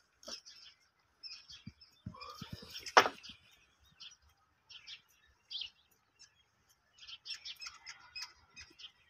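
Small birds chirping on and off in short high calls, with one sharp knock about three seconds in.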